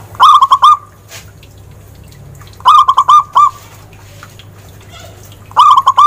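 Zebra dove cooing: three quick phrases of short staccato notes, each under a second long and about two and a half seconds apart.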